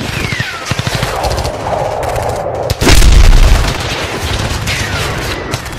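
Battle sound effects: rapid machine-gun fire under the falling whistle of an incoming shell, then an explosion about three seconds in with a deep rumble, and a second falling whistle near the end.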